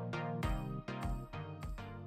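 Background instrumental music: a melody of evenly spaced struck notes, about three to four a second.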